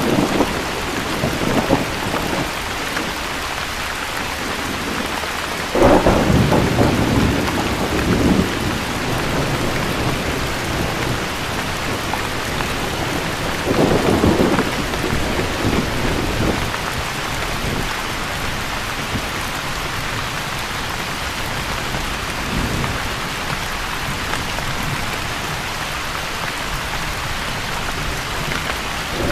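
Steady rain falling, with rumbles of thunder: one starts suddenly about six seconds in, another about fourteen seconds in, and fainter ones follow later.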